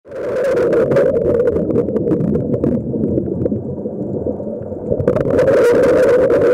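Muffled underwater noise heard through a camera's waterproof housing: a dense, low rush of water with scattered clicks and crackles. The clicks thin out for a couple of seconds in the middle.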